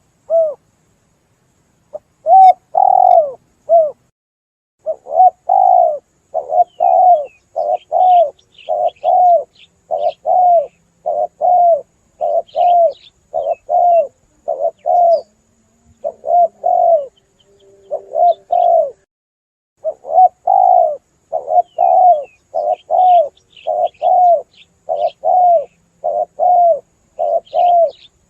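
Spotted dove cooing over and over, a steady run of short coos with brief breaks about two seconds in and again around sixteen seconds. Faint high chirps sound above it.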